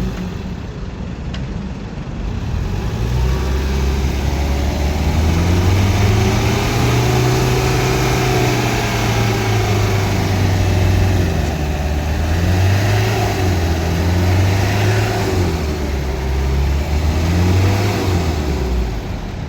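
Mitsubishi L300 van's diesel engine being revved by throttle presses, rising to high revs and dropping back and up again several times. The presses are held only partly down during a smoke check on a van cited for smoke belching.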